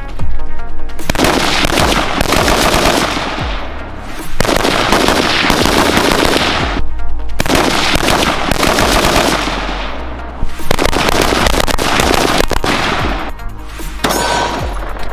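Rapid, sustained gunfire from firearms, with short pauses between long strings of shots, over background music.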